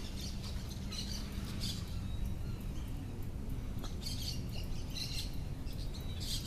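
Birds chirping in short high clusters several times, over a steady low background noise.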